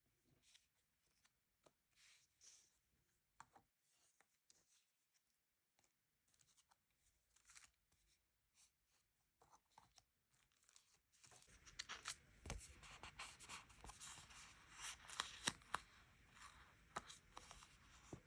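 Quiet desk handling of paper and stickers: scattered soft rustles, small taps and peeling or tearing sounds. About two-thirds of the way through a steady background hiss comes in and the handling gets busier and a little louder.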